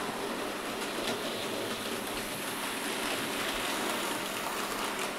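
Hornby OO gauge model train running along the track: a steady whirring rattle of the locomotive's motor and wheels on the rails, getting a little louder about three to four seconds in as it draws near.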